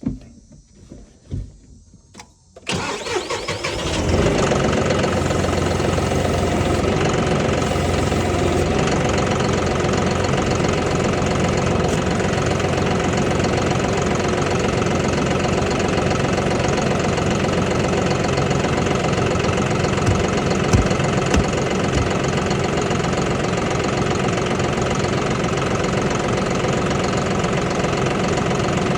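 An engine cranks and starts about three seconds in, then runs steadily at idle. A few light knocks come before it.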